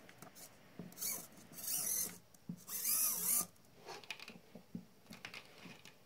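A small servo motor and plastic bracket parts being handled and fitted together by hand: three short rasping scrapes about one, two and three seconds in, with small clicks and knocks between them.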